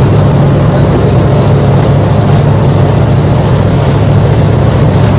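Fishing boat's engine running steadily under way, a loud low drone with the rush of the wake and wind over it.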